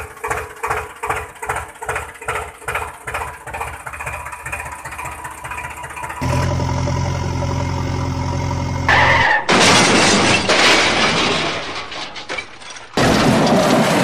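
Dubbed-in engine sound effects for toy vehicles: a tractor engine chugging at about three beats a second, then about six seconds in a steady engine drone for the toy backhoe loader. From about nine seconds there are loud noisy crash-like rushes, and a second one starts near the end as the loader tips into water.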